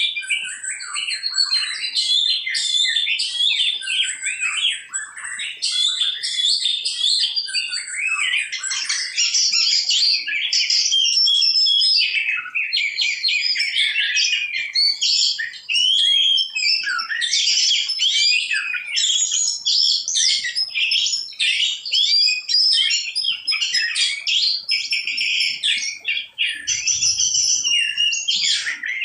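Birds chirping and calling without pause in a dense, overlapping chatter of short, quick notes.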